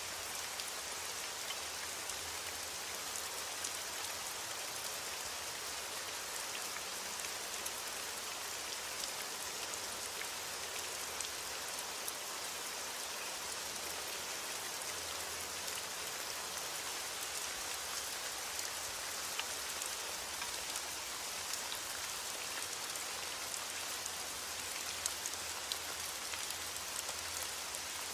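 Heavy rain falling steadily on a window, a dense even hiss with scattered small sharp ticks.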